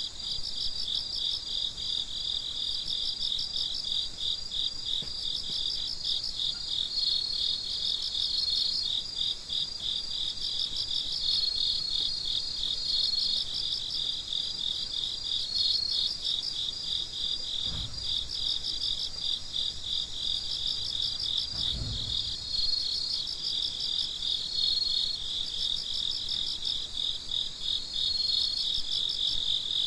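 Chorus of crickets: many fast, even chirps overlapping, with a higher steady trill that comes and goes. Two soft low thumps in the second half.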